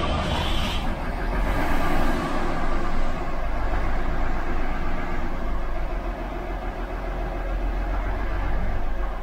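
The diesel engine of a Kromhout-Werkspoor-Verheul VB10 city bus running just after being started, heard from inside the passenger saloon. It runs loudly, then drops to a quieter idle near the end.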